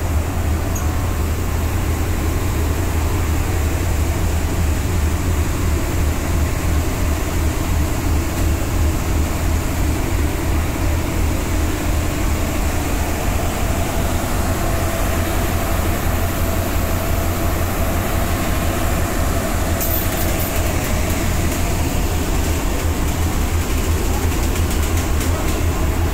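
Passenger ferry's engine running with a steady low rumble under a constant hiss, and a few faint clicks near the end.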